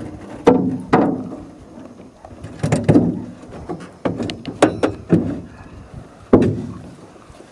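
A wooden paddle knocking against the hull of a small boat being pushed through floating ice: a string of sharp knocks at uneven intervals, some in quick pairs, each with a brief low ring from the hull.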